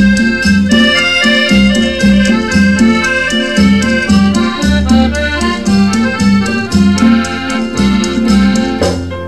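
Instrumental break of a Thai luk thung song played from a mono vinyl record: a band melody over a steady bass line and beat, with no singing.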